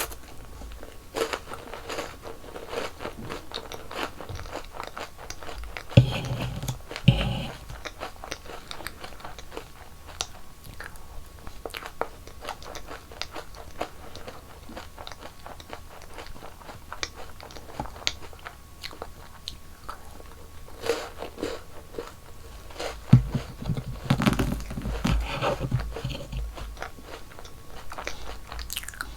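Close-miked eating sounds: crisp bites and crunching with chewing in between, and heavier bites about six seconds in and again near the end.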